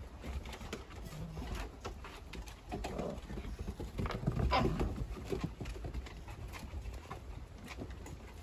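Dogs and puppies scuffling on a wooden deck, their claws and paws clicking and tapping on the boards in quick irregular bursts, loudest about halfway through.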